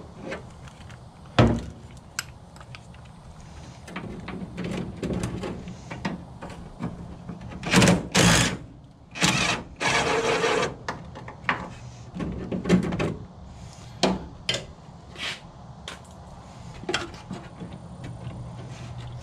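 A DeWalt cordless driver run on the steering coupler bolts in two short bursts, around eight and ten seconds in, amid scattered clinks and knocks of tools on metal.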